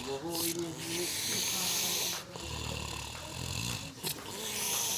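A person snoring heavily: one long rasping snore, then a second, deeper rumbling snore about two and a half seconds in.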